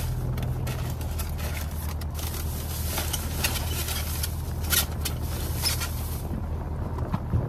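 Car engine idling, heard as a steady low hum inside the cabin, with scattered rustles and clicks from handling takeout food.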